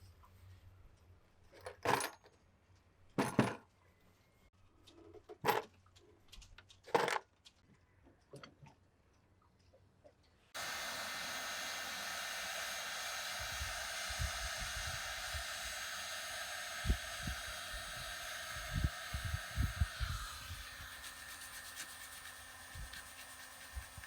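A few short, sharp scrapes, then about ten seconds in a small electric power tool switches on and runs steadily with a whining hum, in work stripping old varnish from wooden boat trim.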